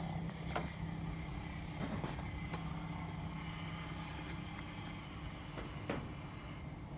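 A steady low engine hum, with several sharp clicks or taps scattered through.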